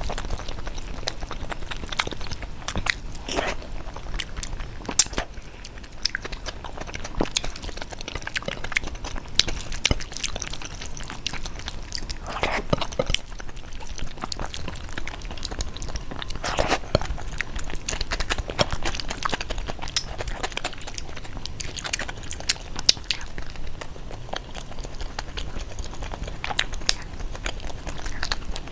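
Close-miked chewing and biting of crunchy food: a steady stream of crisp crunches and small clicks, with a few louder bites now and then.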